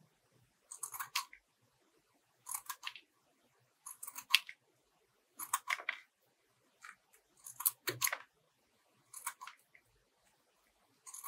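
Scissors snipping through coloured paper to cut out small triangles: short runs of two or three quick snips, roughly every second and a half.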